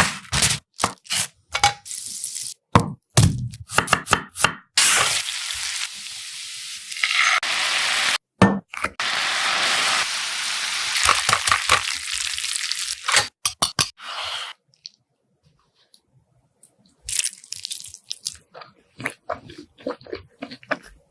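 Chicken frying in hot oil: a dense sizzle for several seconds in the middle, with sharp clicks and knocks from kitchen handling before and after it.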